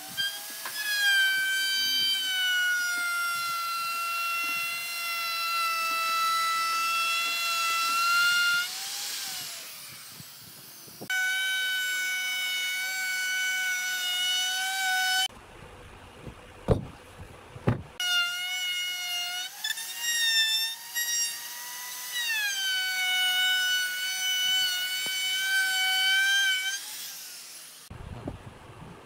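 Electric plunge router running with a high whine as its bit routs the edge of a pine tabletop, the pitch sagging a little under load and rising as it comes free. The whine stops and restarts abruptly a few times, with a few sharp knocks in a short gap about halfway through.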